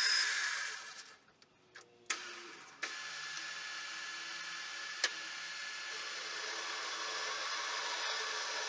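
Small metal lathe turning while a drill bit in the tailstock is fed into the spinning round-bar workpiece to bore its centre hole. A few sharp clicks in a brief hush early on, then a steady cutting and motor noise that slowly grows louder, with one sharp click midway.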